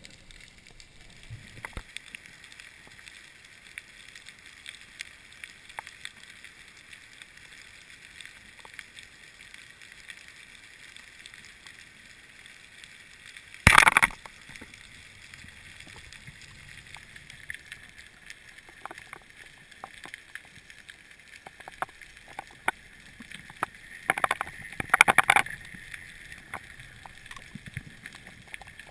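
Underwater ambience picked up by a mask-mounted camera in its housing: a steady hiss with scattered small clicks and crackles. A single sharp, loud bang comes about fourteen seconds in, and a cluster of loud knocks a little after twenty-four seconds.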